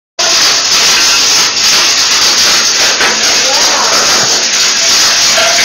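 Loud hail pounding on a storm shelter, heard from inside as a dense, unbroken clatter that starts suddenly and keeps up without let.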